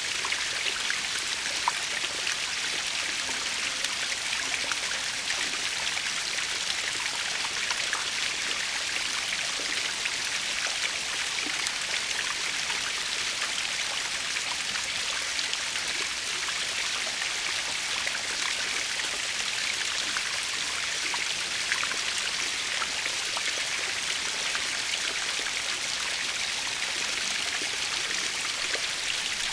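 Waterfall splashing steadily, a continuous hiss of falling and running water with fine drips and spatters throughout.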